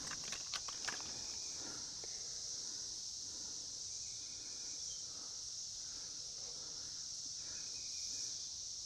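Steady, high-pitched drone of a summer insect chorus in woodland, with a few faint clicks in the first second.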